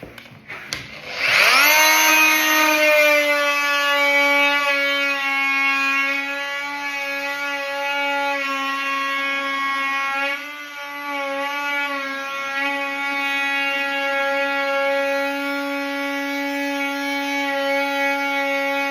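A power tool's motor spinning up about a second in and then running steadily with a high whine, briefly dipping and wavering about ten seconds in as its load changes.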